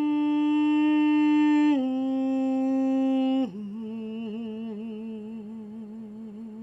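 A lone voice humming three long held notes, each lower than the last; the first two are steady and loud, and the last is quieter, with a wavering vibrato as it fades.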